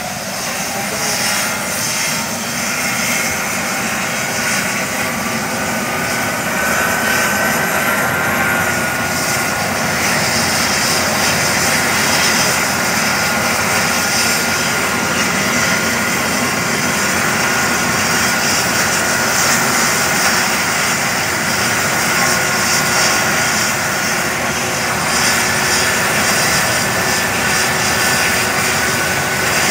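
Eurocopter EC135 air-ambulance helicopter running on the ground: a steady rush of rotor and turbine noise with a high turbine whine. The whine rises in pitch and the sound grows louder over the first several seconds, then holds steady.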